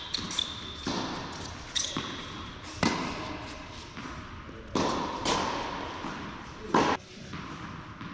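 Tennis rally on an indoor court: rackets striking the ball and the ball bouncing, a string of sharp hits roughly a second apart that echo in the large hall. The loudest hit comes near the end of the rally.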